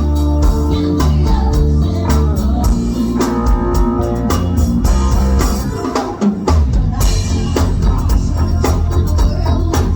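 Band music with a drum kit keeping a steady beat, bass and guitar; the bass drops out briefly about six seconds in.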